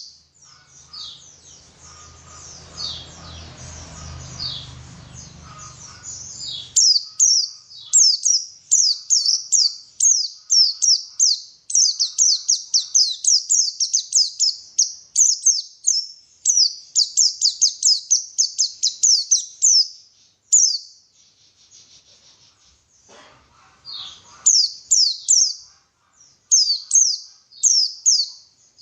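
White-eye (pleci) singing: quick, high, downward-sweeping chirps, several a second, in long runs broken by short pauses. A low rumble sits under the song for the first few seconds.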